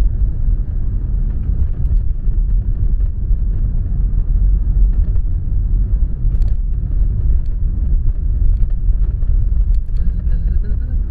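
Steady low rumble of a moving car heard from inside the cabin: road and engine noise, with a few faint ticks.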